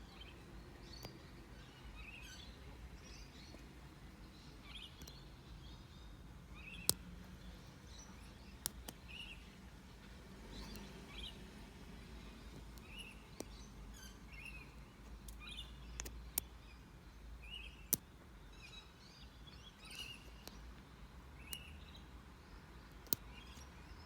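Small birds chirping over and over in the background, with occasional sharp clicks of lock-picking tools against a padlock, the loudest about seven and eighteen seconds in.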